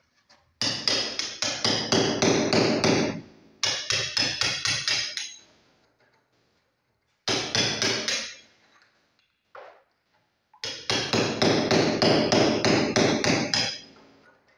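Hammer striking rapidly at a masonry wall, about four blows a second, in four runs with short pauses between.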